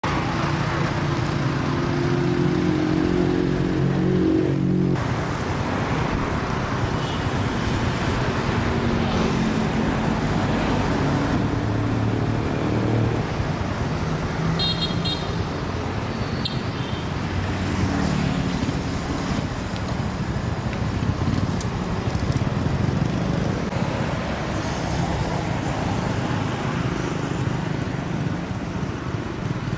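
Road traffic: running motor vehicle engines and passing cars and motorcycles over a steady rumble. A low, pitched engine drone in the first five seconds cuts off abruptly.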